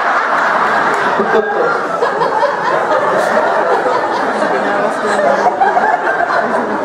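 Theatre audience laughing, a dense, loud wash of many people's laughter with some voices mixed in.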